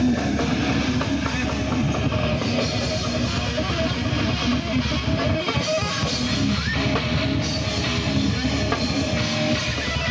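Live rock band playing loud and without a break, with electric guitar to the fore.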